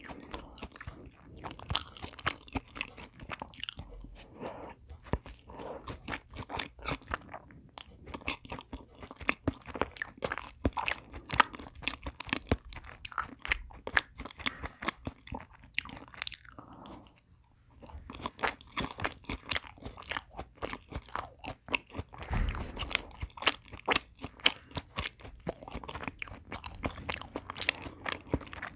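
Close-miked chewing of a chocolate choux pastry with chocolate cream filling: a dense run of small sticky mouth clicks and soft crackles, with a brief lull partway through.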